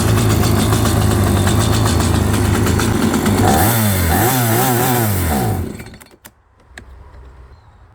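Stihl two-stroke chainsaw running steadily, then revved up and down several times, then shutting off about six seconds in. Two short clicks follow.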